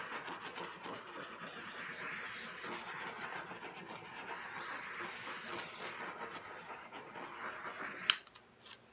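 Small handheld butane torch burning with a steady hiss as its flame is swept over wet acrylic paint. A little after eight seconds comes one sharp click and a few lighter ones, and the hiss cuts off.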